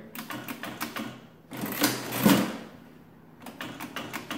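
Number keys of a 1909 Dalton ten-key adding machine clicking down as a figure is entered, then a louder clatter of about a second from the machine's mechanism as it cycles, typical of the hand crank being pulled to add and print. More key clicks follow near the end.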